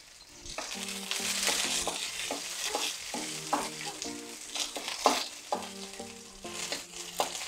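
Garlic, onion and ginger sizzling in hot oil in a metal wok, stirred with a wooden spatula that scrapes against the pan now and then.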